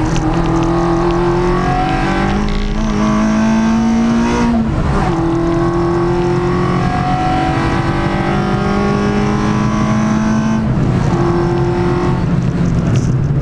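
Peugeot 106 track car's four-cylinder engine on Jenvey throttle bodies, heard from inside the cabin under hard acceleration. The engine's pitch climbs steadily and drops sharply at two upshifts, one about five seconds in and another near the end, then climbs again each time.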